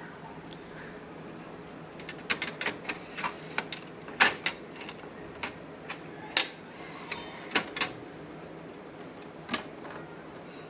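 Irregular clicks and knocks of plastic and packaging being handled while an Epson EcoTank printer is unboxed. They start about two seconds in, come several a second at first, then thin out and stop near the end, over a steady background hum.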